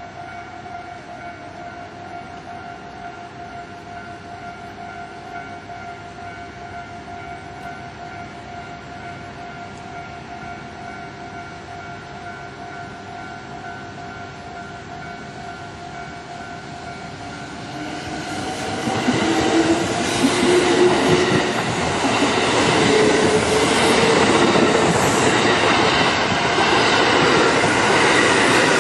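Level-crossing warning bell ringing steadily. About 18 seconds in, a Kintetsu 8600 series commuter electric train arrives and passes; its rumble and wheel clatter grow loud and cover the bell.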